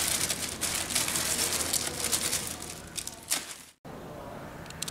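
Plastic sandwich bag crinkling and rustling in a dense crackle as crackers are pulled out of it and bitten into. It stops abruptly about four seconds in, leaving only a softer rustle.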